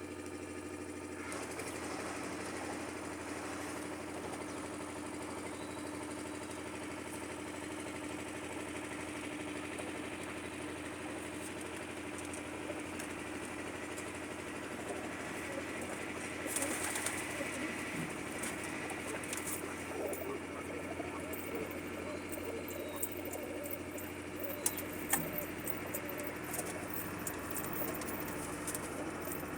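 Birds calling over a steady low hum, with a few sharp clicks in the second half.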